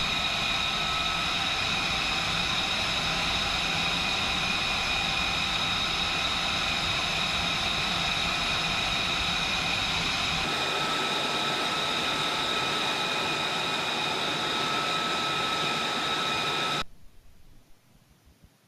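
Steady, loud jet turbine whine, with several high tones over a low rumble. The rumble drops away about ten seconds in, and the whole sound cuts off abruptly near the end.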